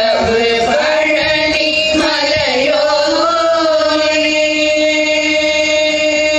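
Group of women singing a Tamil devotional bhajan in unison, settling about a second in onto one long held note.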